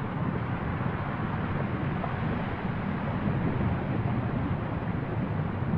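Fagradalsfjall volcano's lava fountain erupting from its cone: a steady low rumble, with wind on the microphone.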